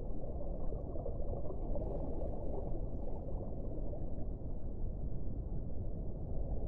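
Low, steady rumbling drone without a clear pitch, part of an ambient sound-design soundtrack.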